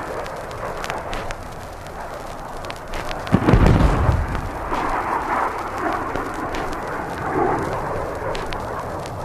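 A single heavy explosion about three and a half seconds in, a deep boom that trails off into a long rumble, with sharp crackles scattered through it: recorded air force ordnance going off.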